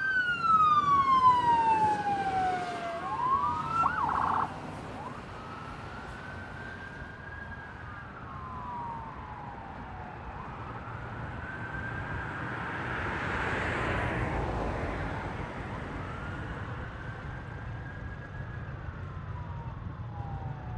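Ambulance and response-vehicle sirens on wail, two sirens overlapping at first with a brief rapid warble about four seconds in. After that the level drops and a single wail carries on much fainter, slowly rising and falling in pitch, while road noise swells and fades about midway.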